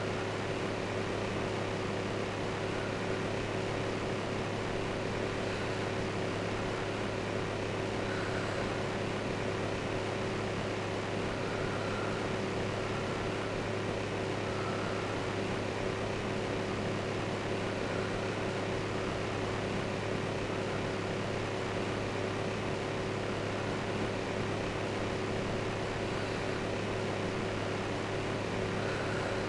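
Fan running steadily: an even rushing noise with a low hum under it.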